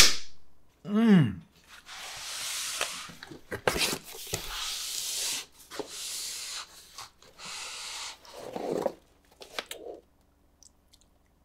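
Cardboard pizza box being handled: rustling and scraping as the lid is closed and the box is slid and lifted, with a few light knocks.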